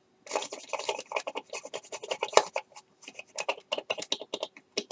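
A drill bit in a hand pin vise scraping back and forth in a small hole in a plastic model kit part, cleaning the hole out with a sawing motion. It makes quick scratchy strokes, several a second, starting about a third of a second in.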